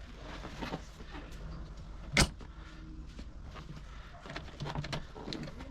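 Workshop handling noise of car seat hardware: scattered small clicks and rattles, with one sharp knock about two seconds in.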